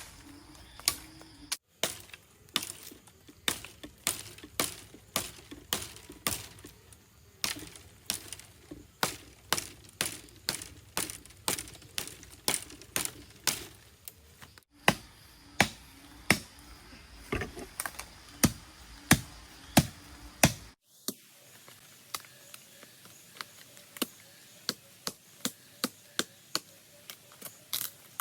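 Steady chopping: sharp strikes about two a second in an even rhythm, breaking off abruptly a few times.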